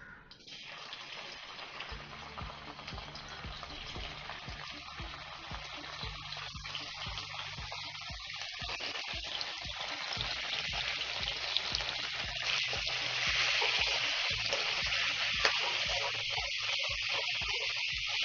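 Paneer cubes frying in hot ghee in a kadai: a steady sizzle with small spattering crackles, growing louder as the pan heats.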